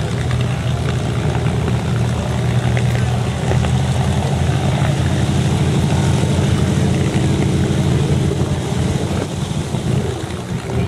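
Piston engines of propeller aircraft running at idle as they taxi, a steady low throb.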